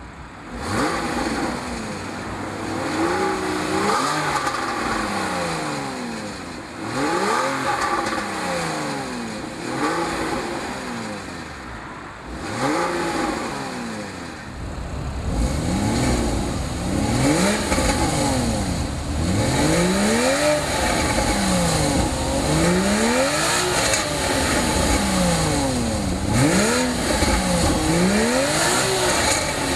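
Porsche 981 Boxster S flat-six engine revved over and over through its exhaust, each rev climbing and falling back within a couple of seconds. A deeper rumble joins the revs about halfway through.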